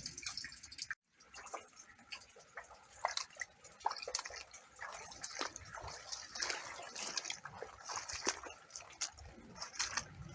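Rainwater dripping: irregular drops and splashes at a few to several per second. The sound cuts out abruptly for a moment about a second in.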